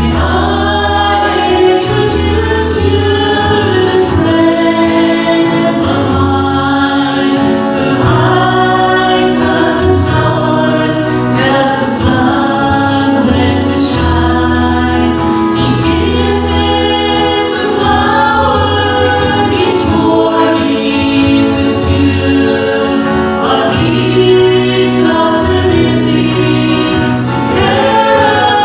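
Several voices singing a gospel song together with instrumental accompaniment and a steady bass line.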